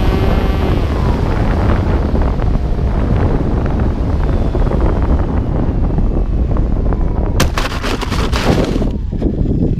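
Wind buffeting an onboard camera's microphone on a fixed-wing FPV model plane, with the electric motor and propeller whining and changing pitch near the start. About seven seconds in comes a dense run of sharp cracks for about a second, after which it quietens to scattered clicks.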